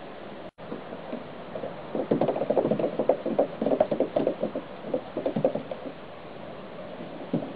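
A cat's paws scrabbling on a plastic playground slide: a fast, irregular run of scuffs and rubs starting about two seconds in and lasting about three and a half seconds.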